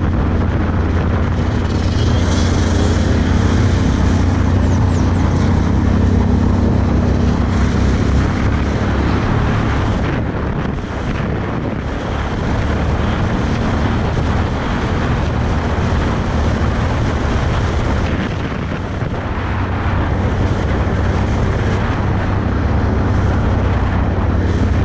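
Can-Am Outlander 1000 ATV's V-twin engine running at steady cruising speed, with wind noise on the microphone over it. The engine eases off briefly twice, about eleven seconds in and again near nineteen seconds.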